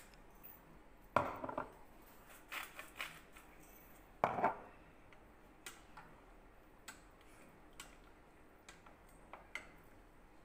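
Kitchen utensils clinking and scraping against a cooking pot while meatballs in sauce are seasoned. Two louder scrapes come about a second in and about four seconds in, with light clicks scattered between and after them.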